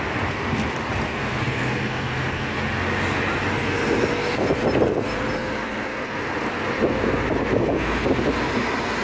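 Road noise heard from inside a moving car: the engine and tyres run steadily, with city traffic outside that swells briefly about halfway through.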